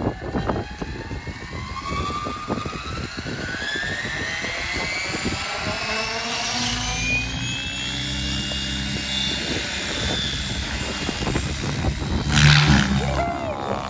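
Align T-Rex 700X electric RC helicopter spooling up: a whine rising steadily in pitch over several seconds as the rotor comes up to head speed, then holding steady with a low rotor beat. A louder burst of rotor noise comes near the end as it lifts off the pad.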